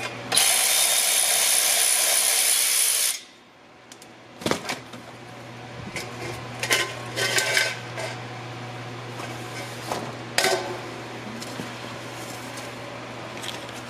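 Milwaukee 3/8-inch cordless ratchet running for about three seconds as it spins out a clutch pressure plate bolt, then stopping abruptly. Scattered metal clinks and knocks follow as the pressure plate and clutch disc are worked off the flywheel.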